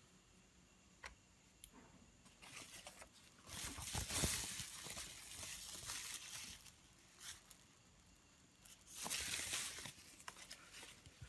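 A thin translucent sheet crinkling as it is handled by gloved hands, in a longer bout starting about two and a half seconds in and a shorter bout near the end, with a few light clicks.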